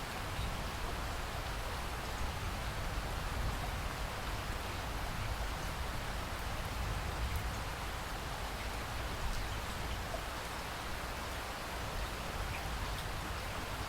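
Steady rain falling: an even hiss with a deep rumble underneath and a few faint drip ticks.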